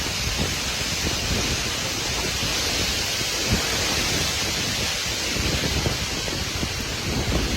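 Severe thunderstorm: heavy rain and strong wind making a steady rushing hiss, with gusts buffeting low on the microphone.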